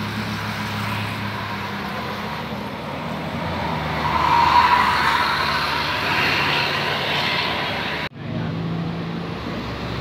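Tour bus passing close by, its engine drone and tyre noise swelling to a peak about four and a half seconds in. The sound breaks off abruptly about eight seconds in, and a lower engine drone of oncoming traffic follows.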